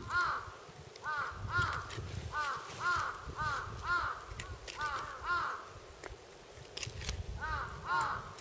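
Crows cawing over and over in short, arched calls, a couple a second, with a pause of about a second near the end before they start again.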